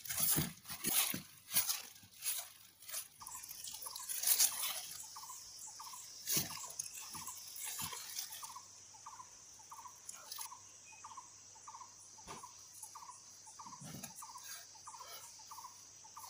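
Disposable plastic gloves crinkling and a bamboo sushi mat rustling and clicking as a kimbap roll is rolled tight and pressed, with scattered knocks, loudest in the first few seconds. From about three seconds in, a faint short chirp repeats evenly, about three every two seconds, and a steady high hiss joins it about halfway through.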